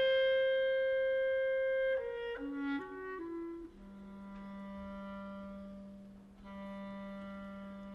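Solo clarinet playing in a piece of new classical music. It holds a long high note, plays a quick falling run of notes, then settles on a long low held note that it sounds again near the end.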